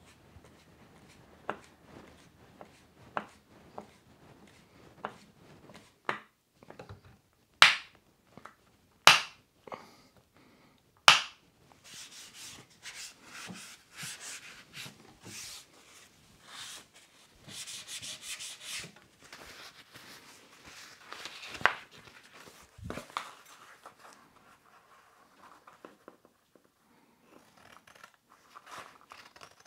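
Light clicks of a hand screwdriver working screws in a wooden chair, then three sharp knocks. Then a cloth rubs over the chair's finished wood in uneven strokes for several seconds, followed by two more knocks.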